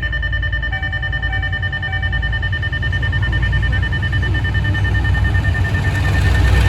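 Level-crossing warning alarm holding a steady high tone, with three short beeps in the first couple of seconds. Under it, the low rumble of an approaching diesel locomotive's engine grows steadily louder.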